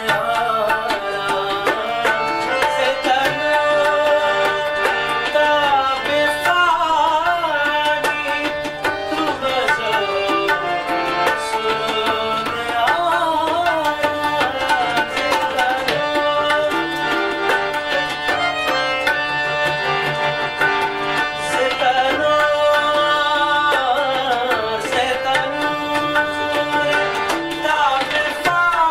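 Tabla playing a continuous rhythm under a harmonium's held notes, with a man singing a wavering, ornamented melody over them.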